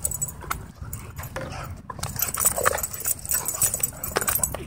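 Dogs play-wrestling at close range: brief dog vocal sounds mixed with scuffling and a string of short knocks and clicks.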